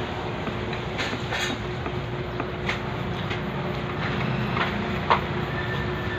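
Steady background noise with a faint constant hum, and a few light clicks and taps from food being picked off a plate by hand; one sharper tick comes about five seconds in.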